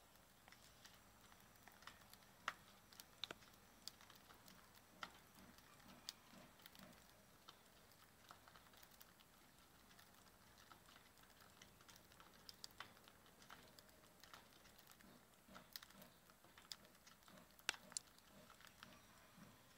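Budgerigars pecking and husking seed: faint, irregular small clicks and taps of beaks cracking seeds and striking the dish, with a few sharper taps.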